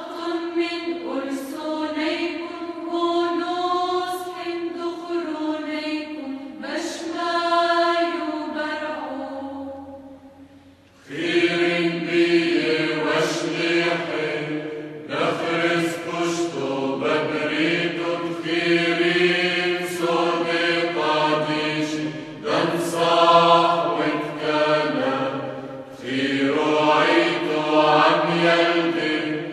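Maronite incense hymn for the dead, chanted in Syriac Aramaic. The singing fades almost out about ten seconds in, then resumes fuller, with a lower part added beneath the melody.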